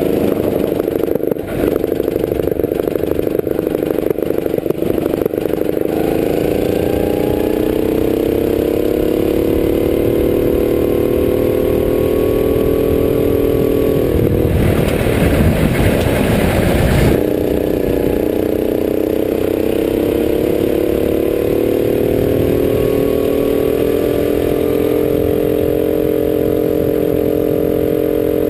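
A rental kart's Honda single-cylinder four-stroke engine, heard onboard, running hard and rising slowly in pitch along two long straights. It drops briefly for a corner about a second and a half in. The chassis rattles through the first few seconds, and a couple of seconds of rushing noise come around the middle.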